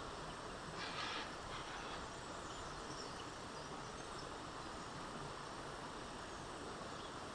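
Steady chirring of insects, with a brief burst of noise about a second in.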